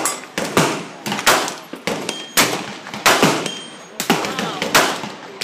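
Gunfire along a shooting range's firing line: about ten sharp shots at irregular intervals, each with a brief echo, from more than one shooter.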